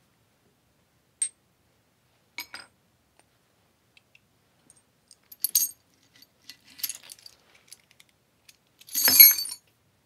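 Steel dapping punches clinking against each other and the steel anvil as they are picked up and set down: scattered single sharp clinks, then a longer metallic jangle near the end, the loudest sound.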